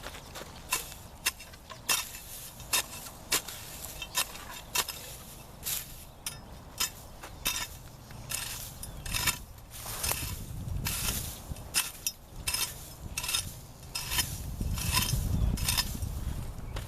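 A run of sharp, irregular clicks and taps, about one to two a second, from hand work on the wood and plastic bottle parts of a bird trap, over a low rumble that swells twice.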